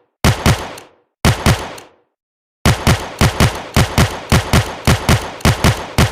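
Revolver gunshot sound effect: shots come in close doubled pairs, as if two revolvers fire together. Two separate paired shots come first, then from a little over halfway a rapid string of pairs at about two pairs a second.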